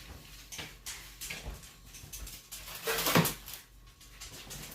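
Scattered light clicks and taps of kitchen handling while pizzas are being topped, with a short louder sound about three seconds in.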